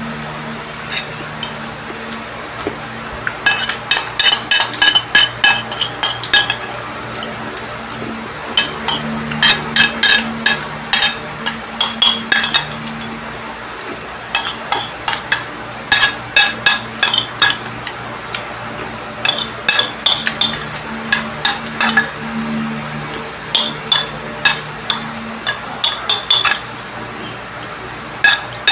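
Metal spoon clinking and scraping against a bowl while eating, in quick clusters of ringing taps with short pauses between them. A steady low hum runs underneath.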